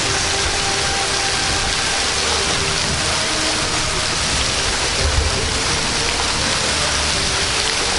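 Waterfall heard close up from behind the falling water: a loud, steady rush of water, with a couple of low thumps about five seconds in.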